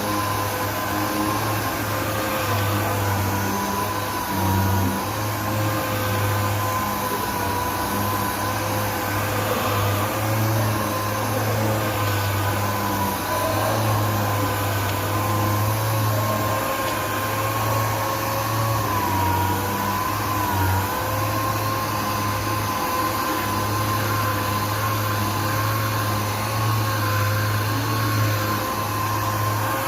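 Machine sander running steadily on epoxy primer on a car body panel, 400-grit, with a whine that wavers slightly in pitch as it is worked over the surface.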